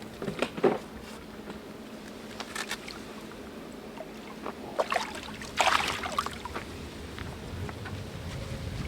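Water splashing and sloshing in irregular bursts, from a hooked carp thrashing at the surface as it is brought in to the net; the biggest splashes come about five to six seconds in.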